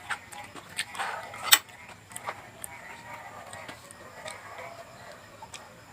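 Close-up mukbang eating sounds of vegetables being bitten and chewed: a run of sharp clicks and crunches, the loudest about one and a half seconds in, thinning to scattered clicks after the first half.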